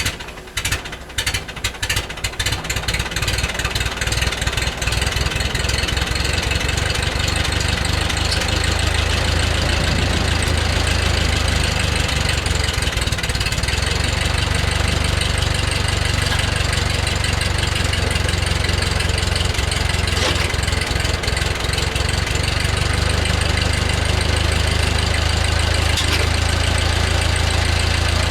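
1947 Ford 2N tractor's four-cylinder flathead engine, just started, running unevenly for the first few seconds and then settling into a steady idle.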